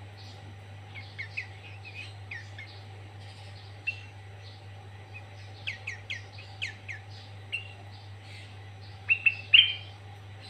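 Sooty-headed bulbul (kutilang) singing in a loud lure-recording style: short sharp whistled notes, many slurring downward, with a quick run of repeated falling notes about six seconds in and the loudest calls near the end. The song is filled in with copied green leafbird (cucak ijo) phrases. A steady low hum runs underneath.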